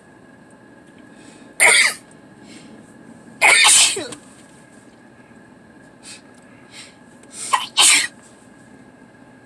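A person sneezing loudly several times in a row: one sneeze about a second and a half in, another about two seconds later, and a quick double sneeze near the end.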